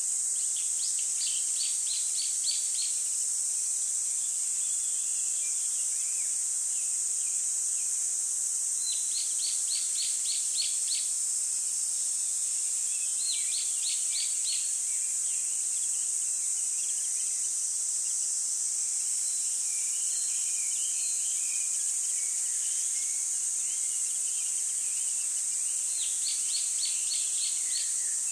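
Outdoor night ambience: a steady high-pitched hiss with several runs of rapid, high chirps, each run a second or two long.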